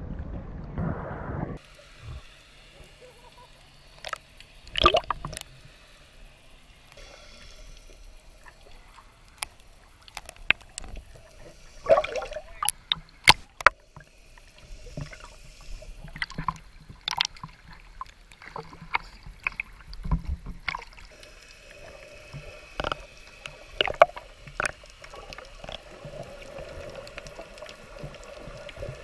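Splashing water at the surface for the first second or so, then muffled underwater sound with scattered sharp clicks and pops, as a snorkeler's camera films below the surface. A faint steady hum comes in past the middle.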